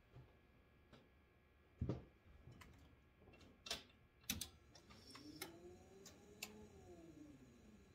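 Faint scattered clicks and knocks, as of someone getting into a pickup truck's cab and working the door and ignition key. Near the end comes a faint whine lasting about three seconds that rises and then falls in pitch.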